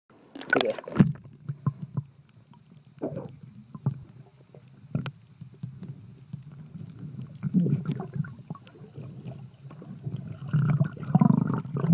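Muffled water sloshing and gurgling around an underwater camera as a snorkeler moves through the water, with irregular splashes and short knocks over a low rumble.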